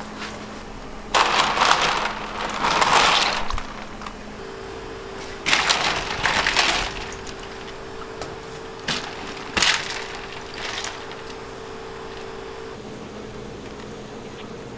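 Water splashing and ice clattering in loud bursts as blanched tomatoes are dropped from boiling water into a steel tray of ice water, followed by a couple of sharp knocks. A faint steady kitchen hum runs underneath.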